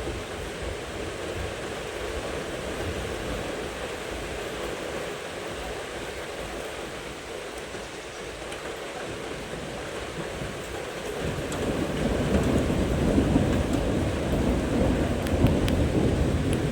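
Steady rain, then about eleven seconds in a deep, rolling thunder rumble builds up and keeps going.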